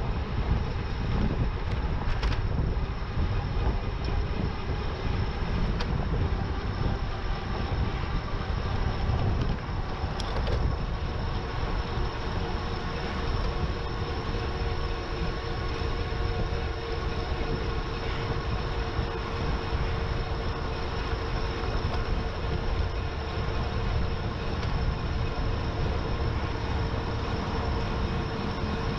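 Riding noise on a GoPro mounted on an electric bike: steady wind rumble on the microphone with a faint steady whine that grows a little stronger about halfway through, and a couple of brief clicks.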